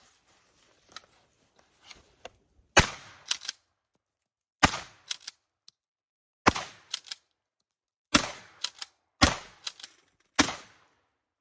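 Six 12-gauge shotgun blasts from a Stevens 320 pump-action, about one to two seconds apart, firing 2 3/4-inch number 8 birdshot. Each shot is followed within about half a second by quick clacks of the pump being worked to chamber the next shell.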